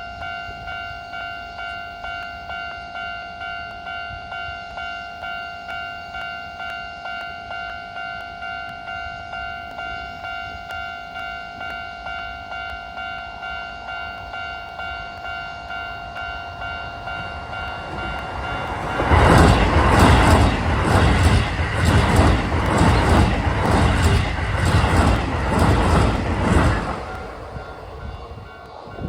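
A Japanese level-crossing warning bell rings with a steady electronic tone pulsing about twice a second. About two-thirds of the way in, a Keisei 3000-series train passes through the crossing at speed, much louder, its wheels clattering over the rail joints in an even beat for about eight seconds before it fades.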